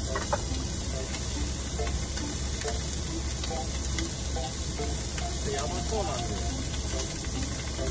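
Chicken pieces sizzling steadily as they fry in a frying pan.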